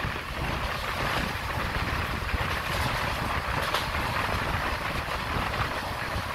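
Passenger train running at speed, heard from an open coach door: a steady rumble of wheels on the rails with a constant hiss of rushing air.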